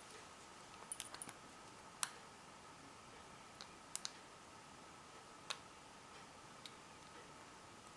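Faint, sporadic metal clicks of a hook pick working the pins of a padlock under tension: a quick cluster about a second in, the sharpest click about two seconds in, then a few single clicks spaced a second or so apart. A faint steady tone sits underneath.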